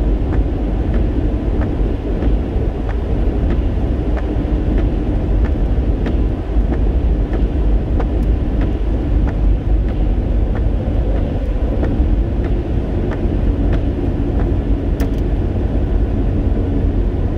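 Steady road and engine noise of a car driving on wet pavement, heard from inside the cabin. Faint regular ticking about one and a half times a second runs underneath, with a sharp click near the end.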